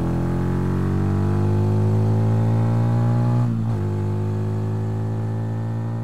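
Benelli TNT 125's single-cylinder four-stroke engine under acceleration: the pitch climbs steadily, drops at an upshift about three and a half seconds in, then climbs again.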